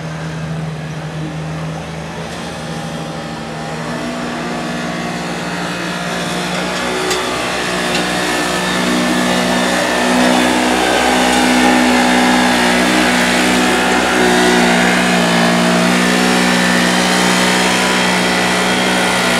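Side-by-side UTV engine running hard at steady high revs while pulling a weight-transfer sled down a dirt pull track, growing louder over the first half.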